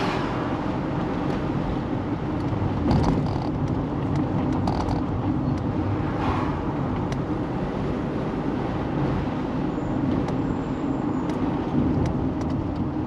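Car driving along a road: steady engine and tyre noise, with a few short clicks or rattles at scattered moments.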